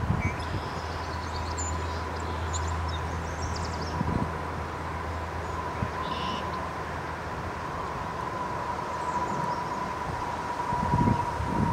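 Steady low rumble of distant traffic with a faint constant high whine over it, and a few short bird chirps in the first three seconds and again about six seconds in.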